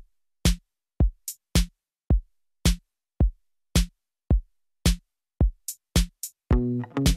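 Background music: a drum-machine beat of about two hits a second, with bass and plucked notes joining about six and a half seconds in.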